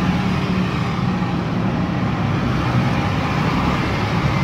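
Steady background traffic noise, with a low hum that fades out under a second in.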